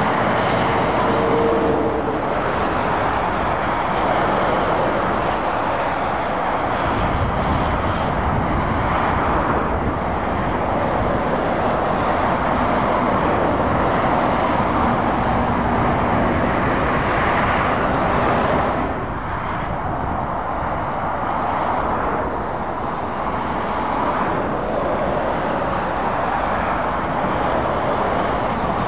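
Steady motorway traffic: heavy lorries and cars passing, their tyre and engine noise swelling and easing as each vehicle goes by, with a brief lull about two-thirds of the way in.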